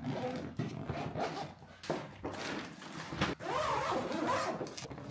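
Packing sounds from a bike travel case: a run of short zipper pulls and rustles as the bag is closed up. A brief wavering whine comes in about three and a half seconds in.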